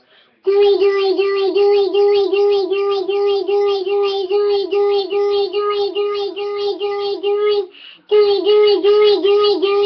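A child's voice saying "girl" over and over through a cupped fist, a vocal sound-effect trick. It is a fast chant of about three syllables a second at one steady pitch, with a short break near the end.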